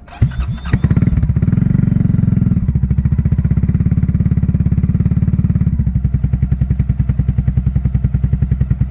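Italika Vort-X 300R motorcycle engine starting up, catching within about a second and running at a fast idle. The idle drops back in two steps to a slower, even beat.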